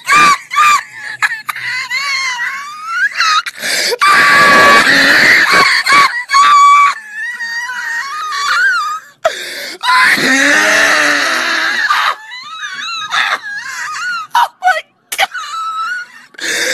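A man's laugh, high-pitched and drawn out in long bouts that rise and fall in pitch, with short breaks between them.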